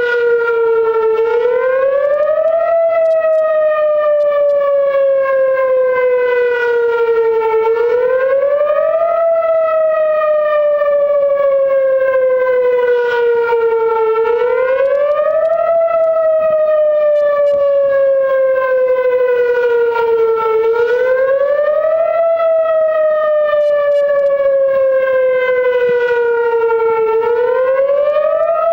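Whelen WPS-series electronic outdoor warning siren sounding a Thunderbolt-style wail on test. It is loud and continuous: the tone climbs quickly for about a second and a half, then sinks slowly for about five seconds, over and over.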